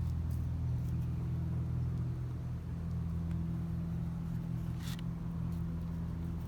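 A steady low mechanical hum from a running motor or engine, with one short click about five seconds in.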